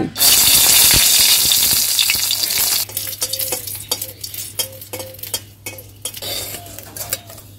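Dried red chillies dropped into hot oil in a metal kadai sizzle loudly at once. After about three seconds the sizzle dies down to a quieter frying, with the spatula scraping and tapping against the pan as they are stirred.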